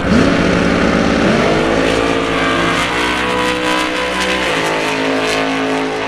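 Drag race car engine revving hard and accelerating. Its pitch climbs twice in the first two seconds, holds high, then drops about four and a half seconds in.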